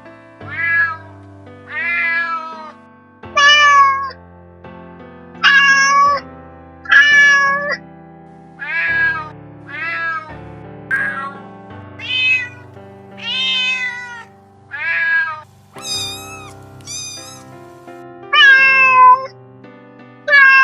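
Domestic cat meowing again and again, short meows with a bend in pitch, roughly one a second, two higher-pitched ones about sixteen seconds in. Background music with held notes plays underneath.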